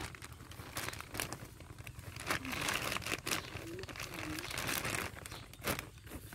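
Dry crinkling and crackling, heaviest from about two to five seconds in, with a sharp crackle near the end.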